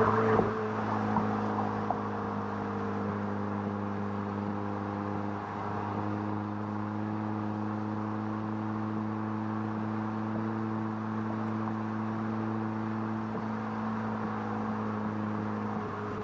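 Audi TT driving at a steady cruise: engine hum holding one steady pitch, with tyre and wind noise underneath. A little louder in the first second, then even.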